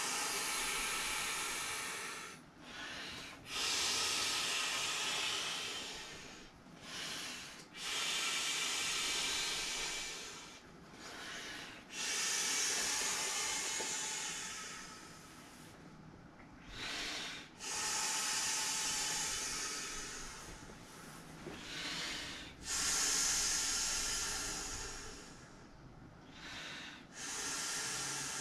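A person inflating a vinyl inflatable toy airplane by mouth: about six long, hissing exhalations through the valve, each two to three seconds long, with a short breath drawn in between each.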